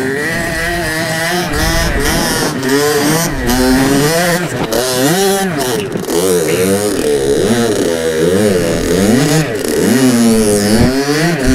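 Two-stroke dirt bike engine revving up and down over and over, its pitch climbing and dropping every half second to second as the throttle is worked on and off.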